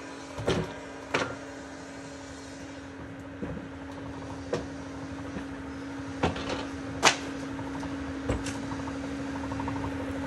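Large sawmill circular saw spinning without cutting, a steady hum, while teak boards knock against the log carriage and its steel rollers about seven times.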